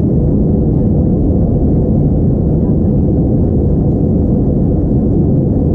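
Steady low roar inside the cabin of an Airbus A321-231 in flight: engine and airflow noise heard from a window seat, even throughout, with a faint steady hum in the middle of the range.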